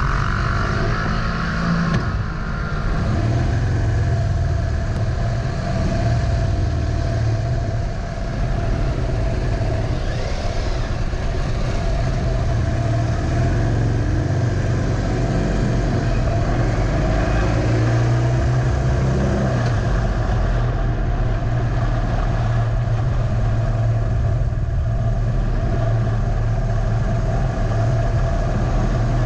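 Harley-Davidson Dyna Low Rider's V-twin engine running steadily, heard from on the bike. It rolls off slowly and then picks up speed.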